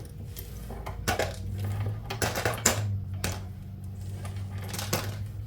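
A heap of small charms and trinkets poured back into a bucket, clattering and clinking in a long run of quick knocks.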